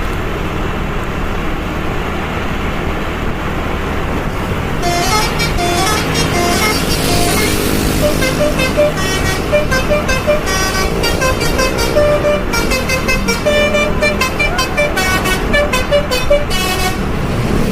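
Metro Mini bus's 'basuri' telolet musical horn playing a quick tune of short notes at changing pitches, starting about five seconds in over the running engine and traffic noise.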